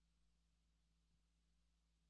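Near silence: only a faint, steady low hum and hiss of the recording's noise floor.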